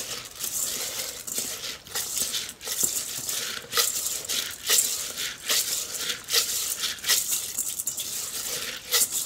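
Raw rice being washed by hand in a stainless steel bowl: fingers rub and swirl the wet grains against the metal, a rhythmic gritty rattling scrape repeating about every second.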